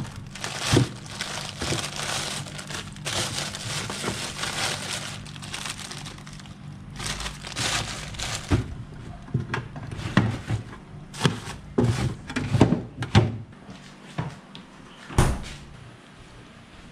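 Plastic grocery bags rustling and crinkling as vegetables are packed into a refrigerator's crisper drawer, with sharp knocks and clicks from the produce and the plastic drawer.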